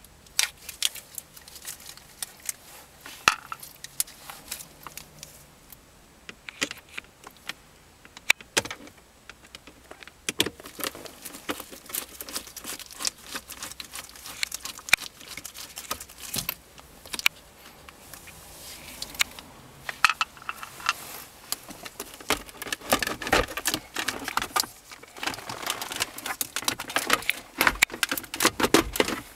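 Hard plastic interior trim being handled and fitted: irregular sharp clicks, knocks and rattles as the center console storage pocket is worked into its mounting clips. The clicking gets busier over the last ten seconds or so.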